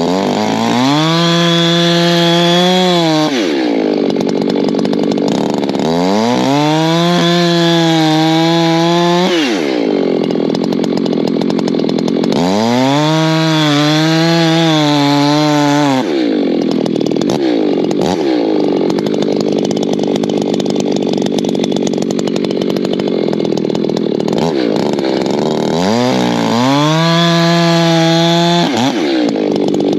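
Echo two-stroke chainsaw cutting oak firewood rounds: the engine runs up to a steady high full-throttle note in four spells of a few seconds each, easing off to a rougher, lower running sound between them.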